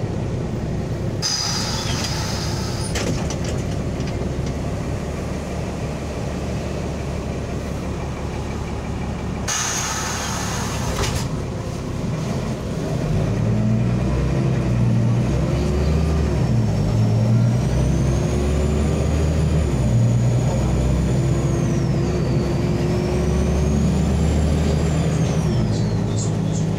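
Interior of a LAZ articulated city bus under way: steady diesel engine and road noise, with two short air-brake hisses, one about a second in and one about ten seconds in. From about halfway the engine grows louder, and a high whine rises and falls above it.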